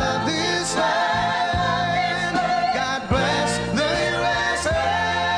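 Country ballad playing: a male singer holding long notes over a band with a steady bass line.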